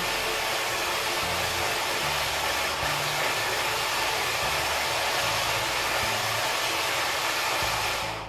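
Electric hand mixer running steadily at full speed, its beaters whipping a runny yellow mixture in a metal pot; it switches off abruptly near the end.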